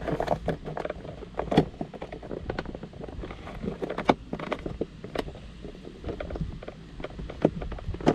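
Plastic clicks and knocks of dashboard trim being handled and pressed back into place, with a few sharper snaps, over a steady low hum.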